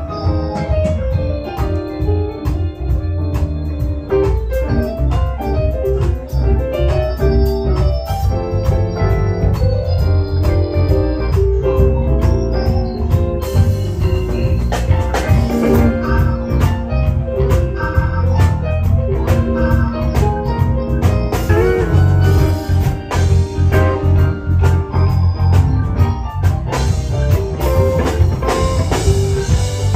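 Live blues band playing, with an organ carrying the lead in held chords and runs over a steady low bass line and drums.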